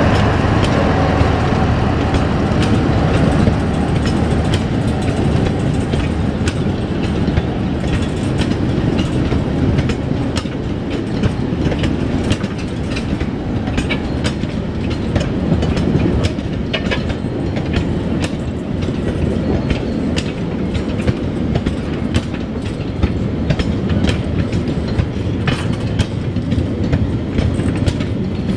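A long train of steel peat wagons on a narrow-gauge field railway rolling past, wheels clacking over the rail joints with many sharp metallic clicks and clanks over a steady rumble. The low rumble is strongest at the start and eases over the first few seconds.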